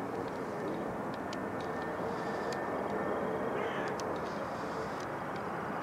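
Steady roar of a jet airliner's engines, with a faint steady tone running under it. Short high chirps come and go over it.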